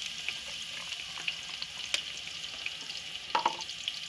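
Sliced onions sizzling in hot ghee in a metal pot, just added and beginning to fry, with a steady hiss and small crackles. A spatula stirs them, with a sharp tap about two seconds in and a scrape against the pot near the end.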